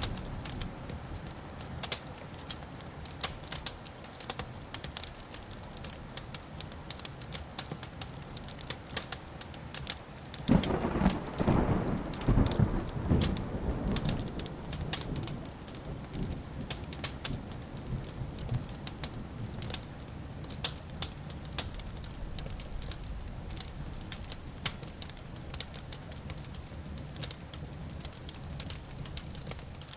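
Wood fire crackling with sharp, irregular pops throughout. About ten seconds in, a thunderclap breaks into a low rumble that rolls on for several seconds and fades.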